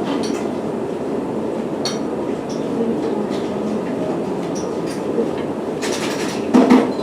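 Train running: a steady rumble with scattered short clicks and clinks, a louder cluster of them near the end.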